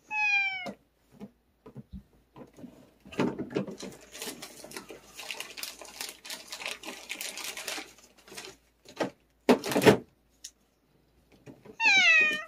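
A cat meows twice, a short call at the start and a falling meow near the end, with a few seconds of rattling and clicking in between.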